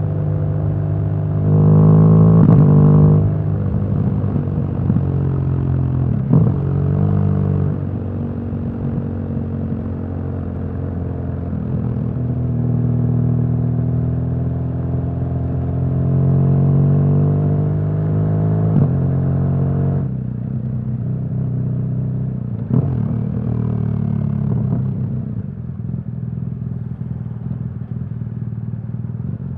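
BMW R1200GS boxer-twin engine running under way, revs rising and falling with the throttle, with a louder burst of acceleration about two seconds in.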